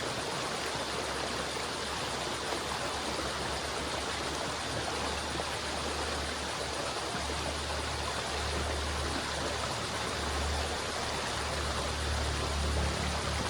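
River water flowing steadily, an even rushing noise. A low rumble underneath comes and goes and grows stronger in the second half.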